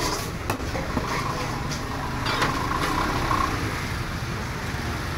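Steady low rumble of market background noise, with a few light knocks as a gutted fish is shifted about on a wet wooden chopping block.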